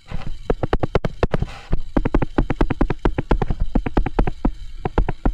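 Stylus pen clicking and tapping on a tablet screen while handwriting, a rapid run of sharp clicks several times a second.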